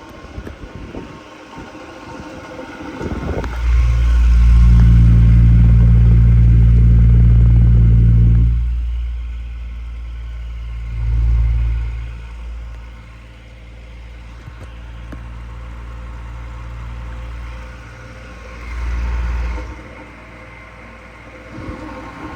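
Stand fan's electric motor humming with a low, steady drone. It is loud for several seconds, then drops to a quieter hum that swells up twice.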